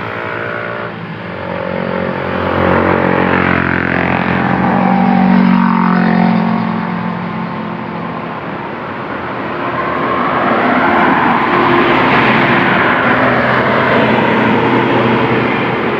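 Basuri multi-tone bus air horn (the 'telolet' horn) played manually, sounding a melody of sustained notes that shift and slide in pitch, swelling louder twice.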